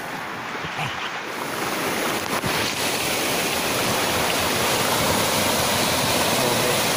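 Small sea waves breaking into foam and washing over a shallow shore, a steady rush of surf that grows a little louder after the first two seconds.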